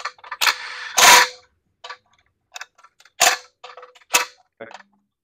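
Cordless impact driver run in about four short bursts, driving bolts into an oil pan assembly, with smaller clicks of bolts and bit between. The loudest burst comes about a second in.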